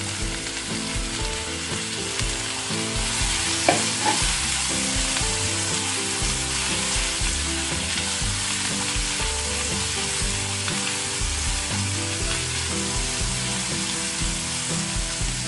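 Chopped onions sizzling in hot oil in a nonstick frying pan while being stirred with a silicone spatula, with one sharp knock a little under four seconds in.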